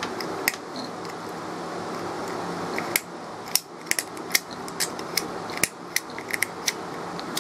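Small sharp clicks and taps of the plastic and metal parts of a pull-cord ceiling switch being handled and fitted back together, a few at first and coming thicker and faster in the second half.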